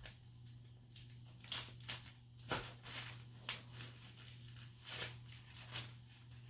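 Packaging being unwrapped by hand: irregular crinkling and crackling of wrapping, with about a dozen sharper crackles spread through the middle and later part.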